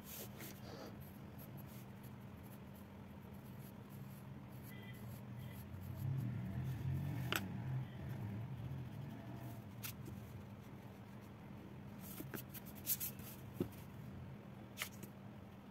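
Drawing tools being handled on a hardboard desk: a red pencil laid down and pens picked up, giving a few light clicks and knocks and some rustling about six to eight seconds in, over a low steady hum.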